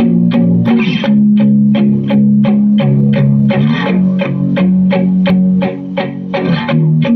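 A guitar-led song played loudly through loudspeakers driven by a homemade stereo amplifier built on the TDA1552Q chip, with a steady beat of about three strokes a second.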